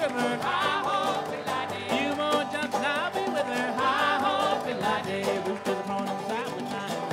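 Old-time string band playing live: banjo and guitar in a lively string-band groove, with a voice singing over them.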